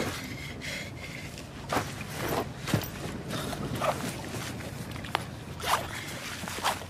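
A fabric backpack being handled and rummaged through: a string of short rustles and zip pulls, with a couple of sharp clicks.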